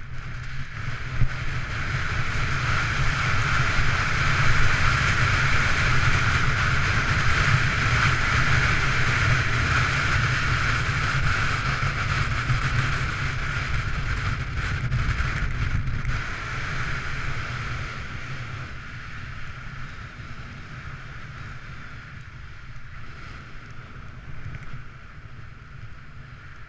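Rushing wind buffeting the microphone and skis hissing over packed snow on a fast downhill run. The noise swells over the first few seconds and eases off in the last third.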